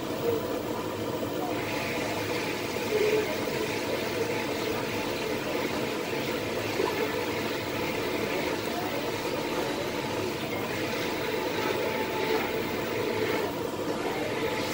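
Steady rushing, rumbling noise of double-boiler soap pots cooking over gas burners, with a few brief louder blips.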